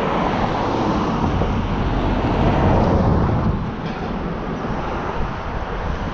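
Wind rushing over a bicycle-mounted action camera's microphone while riding through a road intersection, mixed with road and passing traffic noise. It is loudest in the first half and eases a little about halfway through.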